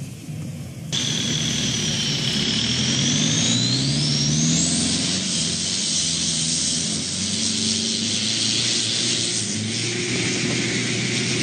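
Long-tail racing boat's large exposed engine running at high revs, its pitch climbing as it accelerates, with a high whine that rises steeply a few seconds in. A short, quieter stretch of boat engine comes before it, cut off about a second in.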